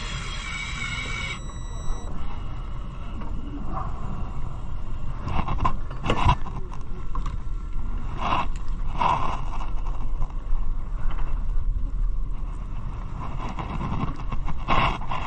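Electric fishing reel's motor whining as it winds in line, cutting off about a second in. After that there is a steady low rumble with a few short, louder rushes of noise.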